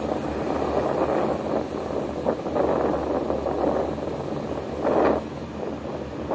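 Steady wind and traffic road noise picked up by a camera riding along a highway bike lane, with a brief louder whoosh about five seconds in.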